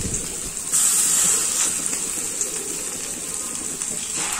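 Bitter gourd and egg fritter mixture sizzling and bubbling as it deep-fries in hot oil in a metal pan. The sizzle grows louder for about a second near the start, and again near the end as a fresh portion of the mixture is dropped into the oil.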